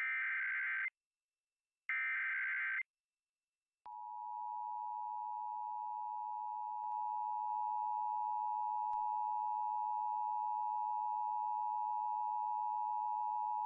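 Emergency Alert System activation: two of the SAME header data bursts, harsh digital screeches about a second long and a second apart, then about four seconds in the steady two-tone EAS attention signal (853 and 960 Hz) starts and holds, announcing a tornado warning.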